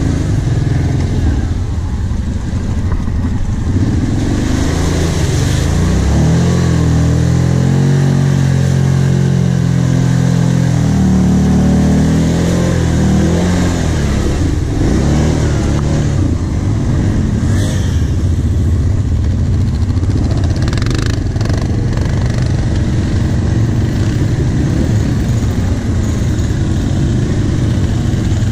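Kawasaki KVF 750 Brute Force ATV's V-twin engine running under load through mud, its pitch rising and falling as the throttle is worked, loudest a few seconds in. A few short knocks come about two thirds of the way through.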